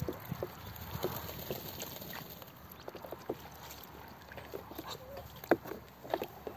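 Muscovy ducks splashing and dabbling in a shallow tub of water: small irregular splashes and sloshes, with a sharper splash about five and a half seconds in.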